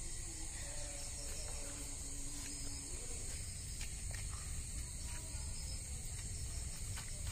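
Steady high chorus of night insects, crickets, over a low rumble, with a few faint ticks as the kindling fire catches.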